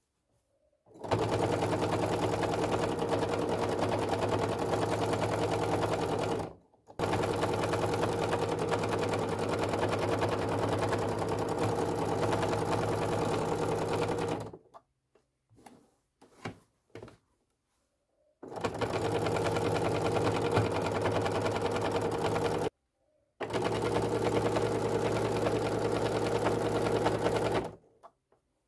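Baby Lock Soprano sewing machine stitching free-motion at a steady, fast speed, feed dogs lowered and a free-motion foot on. It runs in four long stretches, stopping briefly between them, with a few faint clicks in the longer pause about halfway.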